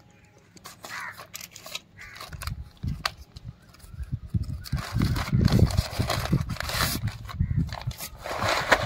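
Hands tearing open a plastic courier mailer and rustling its packaging, with crinkling plastic and foil as a foil pouch is pulled out. Irregular handling thumps come in the middle and are the loudest part.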